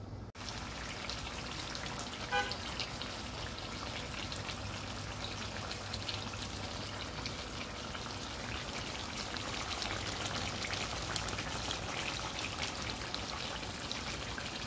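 Chicken and tomato pieces sizzling and bubbling in a frying pan, a steady crackle of small pops as they simmer in the juices the chicken has released. A short pitched blip about two seconds in.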